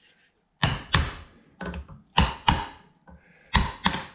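About seven hammer blows on a steel drift set inside a Toyota Land Cruiser FJ40 front wheel hub, some in quick pairs. The blows land on the outside of the old tapered wheel bearing, driving it and the inner grease seal out of the hub.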